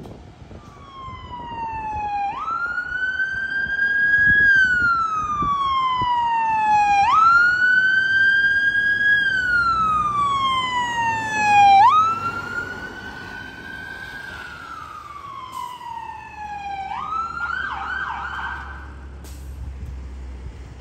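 Fire engine's electronic siren on a slow wail: three cycles, each jumping up quickly and then falling slowly, loudest as it passes about twelve seconds in. Near the end it switches briefly to a fast warbling yelp and stops, with the diesel engine rumbling underneath.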